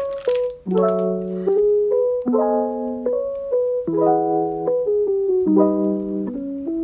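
Background music: a mellow electric piano playing slow chords with a melody on top.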